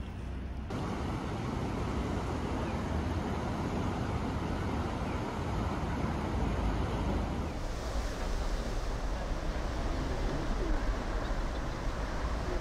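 Steady outdoor rush of flowing river water with wind buffeting the microphone. About seven seconds in it cuts to a different, brighter open-air hiss.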